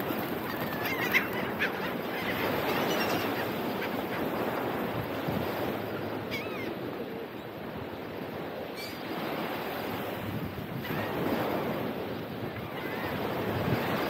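Ocean surf washing in steadily, with a flock of birds giving short, arched high cries now and then.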